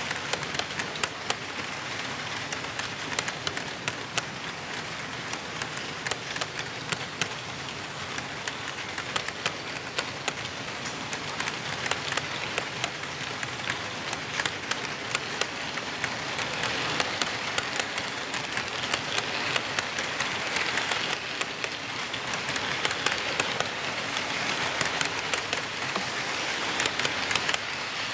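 A model locomotive rolling along its track: a steady rushing hiss thick with small rapid clicks from the wheels and rails. It grows louder in the second half.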